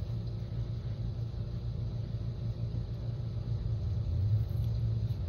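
Steady low background rumble, even and unbroken.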